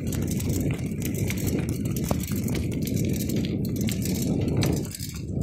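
Low rumbling and rattling noise from riding a bicycle over asphalt, with wind buffeting the microphone; it dips briefly near the end.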